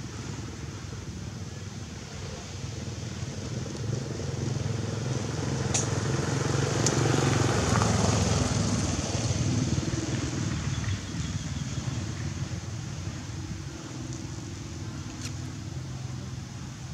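A motor vehicle's engine passing by: a low rumble that grows louder over several seconds, peaks about halfway through, then fades away.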